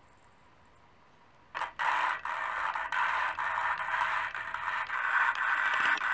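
Hand-crank valve lapping tool turning an engine valve against its seat with lapping compound, making a continuous gritty scraping. It starts suddenly about one and a half seconds in, after near silence.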